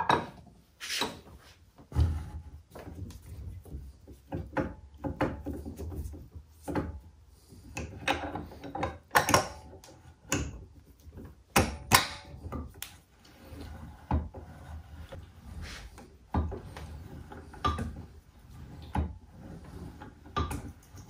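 Irregular metal clunks, clicks and scrapes as the steel quill of a 1937 Walker Turner drill press is worked up into the head to engage the spline shaft and feed pinion. The sharpest knocks come close together around nine to twelve seconds in.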